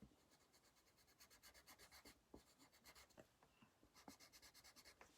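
Faint scratching of a black coloured pencil on paper, drawing quick short lines in a steady rhythm.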